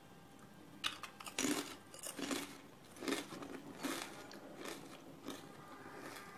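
Crisp, thin fried homemade potato chips crunching as a person bites and chews them. A sharp bite a little under a second in is followed by a steady run of chewing crunches, roughly one every two thirds of a second, growing fainter.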